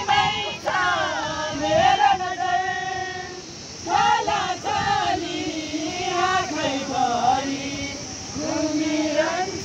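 Singing, led by a woman's voice, with long held notes.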